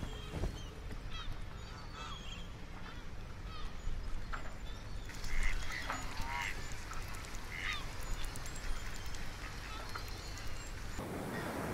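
Waterfowl calling now and then over a steady low wind-like ambience. Near the end a soft wash of water comes in.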